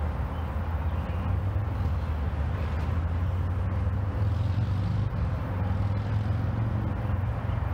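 Steady low rumble of road traffic, with a heavy engine drone that rises a little in pitch about halfway through.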